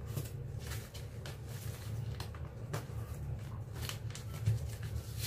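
A sheet of white paper rustling and crinkling as it is folded and pressed flat by hand, in a string of short, uneven scrapes over a low steady hum.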